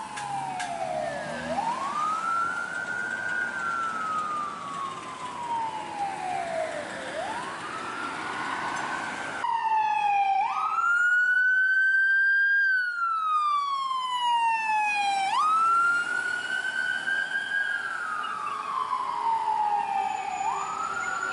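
Emergency vehicle sirens on a slow wail, each sweep rising quickly and then falling slowly over about five seconds. First from a fire engine pulling away; about ten seconds in the sound cuts to a louder electronic wail from a paramedic rescue ambulance.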